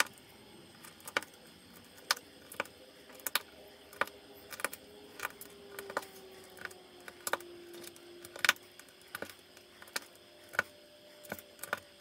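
Small LEGO 1x1 round tiles being pressed one by one onto the studs of a train track base: sharp plastic clicks, about two a second, with the loose tiles held in the other palm rattling now and then. The loudest click comes a little past the middle.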